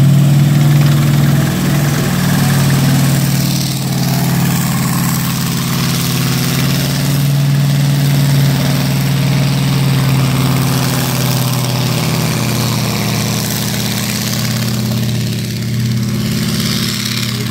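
M4 Sherman tank's air-cooled radial engine running steadily as the tank drives and turns.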